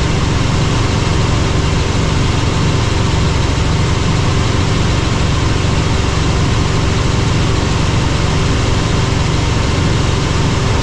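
Helicopter in flight: the rotor and turbine engine make a loud, steady drone, heaviest in the low end, with a faint constant whine above it.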